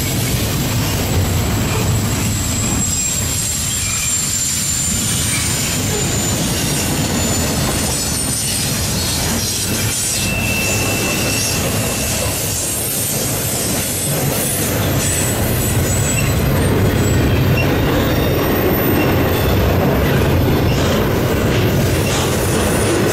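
Double-stack intermodal container train rolling past close by: a steady loud rumble of well-car wheels on the rails, with thin high wheel squeals at times.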